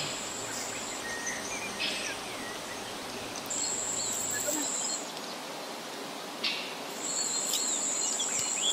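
Outdoor ambience: an insect's high, steady buzz comes and goes in spells of a second or two, with birds chirping in between. A few short knocks of metal cookware can be heard, the sharpest about six and a half seconds in.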